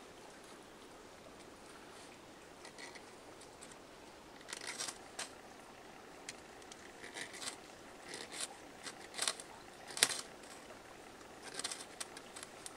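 A run of short, sharp scrapes and clicks from hands working at fatwood tinder to light a fire, starting about four seconds in, the loudest about ten seconds in. A faint steady hiss of running water lies underneath.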